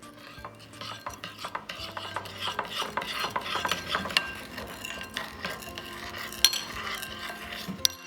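A spoon stirring and scraping around a container of sugar syrup, mixing in food coloring, with a couple of sharper clinks near the end.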